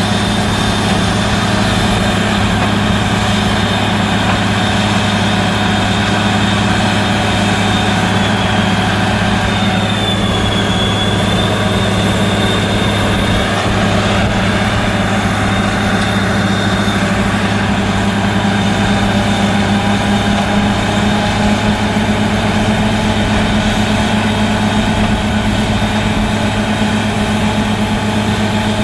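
Borehole drilling rig running steadily under load: a heavy engine's low, even hum with a high whine over it, the whine dipping briefly about ten seconds in.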